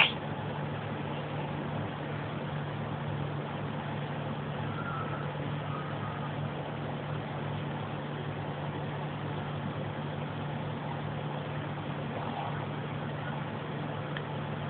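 Steady low mechanical hum, with one sharp click at the very start.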